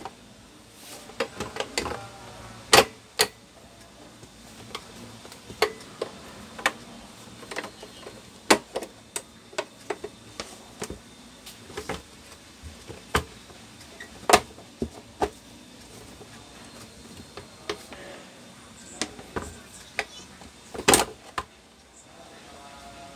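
Irregular clicks and knocks as an induction cooker's glass-topped upper housing is lined up and pressed down onto its plastic base, with two louder knocks about three seconds in and near the end.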